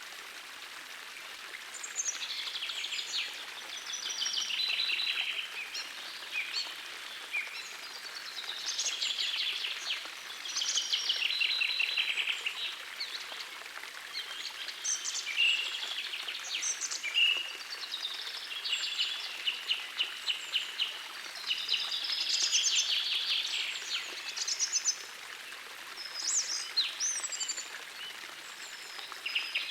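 Several songbirds singing in repeated trilled and chirping phrases every few seconds, over the steady rush of a gentle forest stream.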